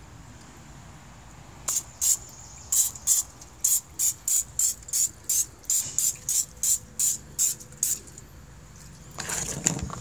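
Olive oil cooking spray sprayed onto a pizza pan in quick short bursts, about three hisses a second, ending with a brief handling rustle near the end.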